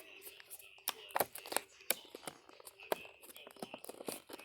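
Earbud retail packaging being pried and torn open by hand: irregular sharp crackles and clicks of the package giving way.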